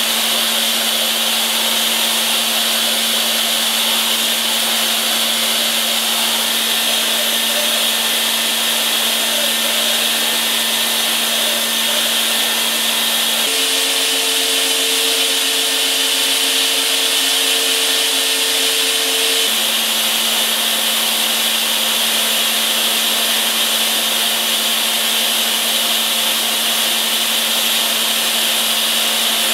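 Brother Speedio S500X1 machining centre's high-speed spindle milling aluminium with a small end mill: a steady, loud hiss of the cut over a constant hum. About halfway through, a higher steady tone joins for some six seconds, then drops away.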